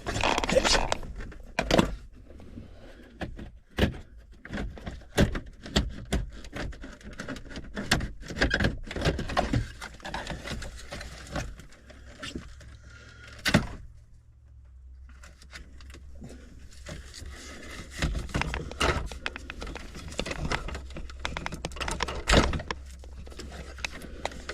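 Irregular clicks, knocks and light rattles of hands working on a car stereo head unit and its wiring, with a brief lull about two-thirds of the way through.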